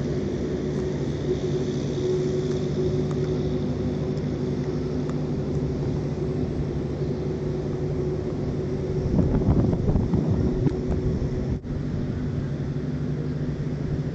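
A steady, low engine drone with several held tones underneath. About nine seconds in, a louder, rougher noise lasts for about two seconds.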